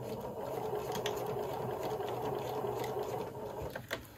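Pfaff sewing machine running steadily as it stitches a seam around the layers of a cloth pad, stopping shortly before the end with a click or two.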